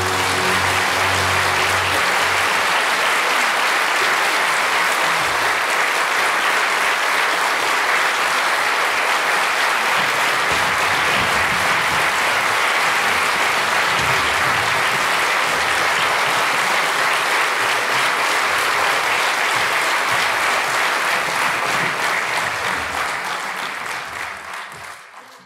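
Audience applauding steadily after an opera aria, with the last low orchestral chord dying away in the first second or two. The applause fades out near the end.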